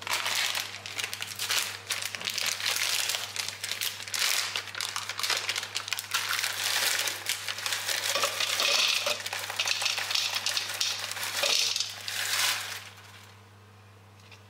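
Plastic packet of mixed berries crinkling as it is opened and handled, with berries dropping into a plastic blender cup, a dense crackly rustle that stops about a second and a half before the end. A low steady hum sits underneath.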